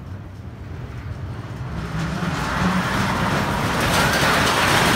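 Small roller coaster train rumbling along its steel track as it approaches, growing steadily louder from about two seconds in.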